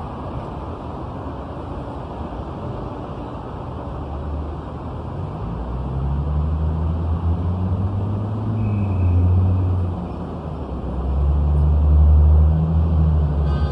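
City street traffic heard from above: a steady hum of passing cars, with the low engine drone of passing vehicles swelling twice in the second half.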